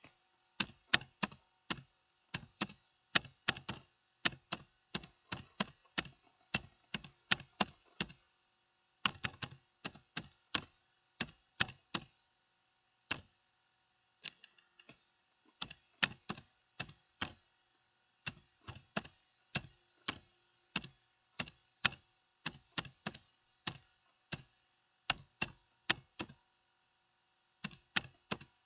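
Typing on a computer keyboard: quick runs of sharp keystroke clicks, broken by several pauses of about a second between words.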